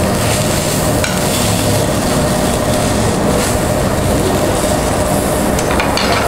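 Pork sizzling on a tabletop Korean barbecue grill, with a steady rumble underneath and a few light clicks of metal tongs.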